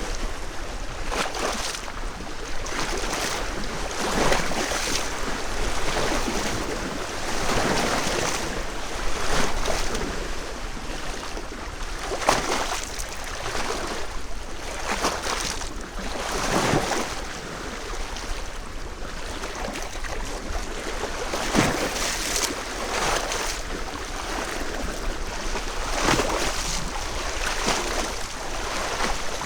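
Small lake waves lapping against shore stones: a steady wash broken every few seconds by a brief splash, with a low wind rumble on the microphone underneath.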